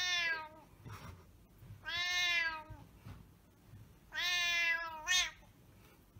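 Domestic cat meowing three times, each a drawn-out call of about a second, spaced about two seconds apart, the pitch sliding down slightly in each.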